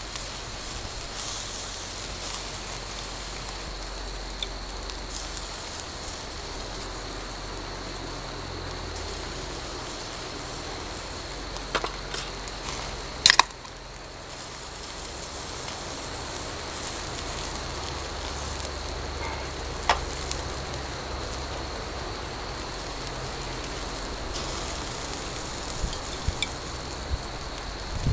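A steady outdoor hiss with faint crackling and a thin, steady high-pitched tone, broken by a handful of sharp clicks, the loudest about halfway through.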